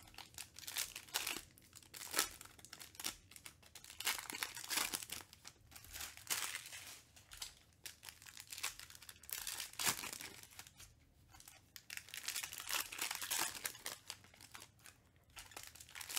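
Foil trading-card pack wrappers crinkling and tearing as they are opened by hand, in irregular bursts every second or two.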